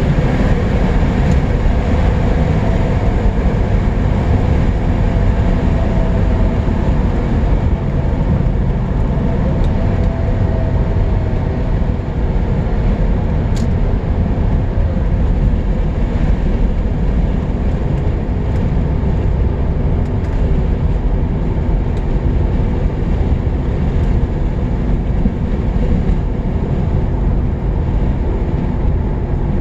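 Lancia Thema 8.32 with its Ferrari V8 driving at a steady pace: a loud, even, low rumble of engine and road noise with no revving.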